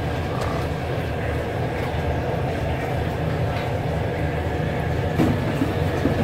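Steady low mechanical rumble of restaurant kitchen equipment, with a few soft thuds as hand-pulled noodle dough is stretched and laid on a floured wooden board.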